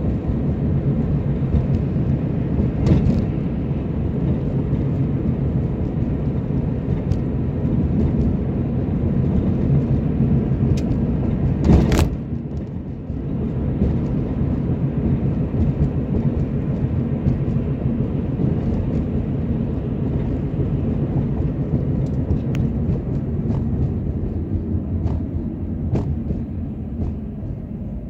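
Steady low rumble of a car's road and engine noise, heard from inside the cabin while driving. A few short sharp knocks stand out, the loudest about twelve seconds in.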